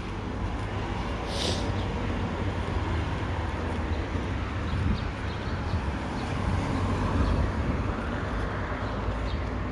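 Road traffic at a town junction: a steady rumble of passing vehicles' engines and tyres, with one brief sharp hiss about a second and a half in.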